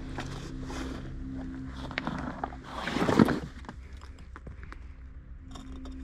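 Sustained low drone tones of ambient background music. A brief rushing swell of noise rises and falls about three seconds in, with a few faint clicks scattered around it.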